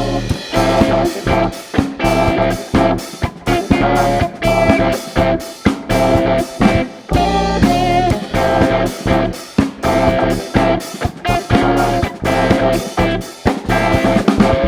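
A jazzy dance-funk band playing an instrumental passage between vocal lines: guitar over a steady beat of drums and bass.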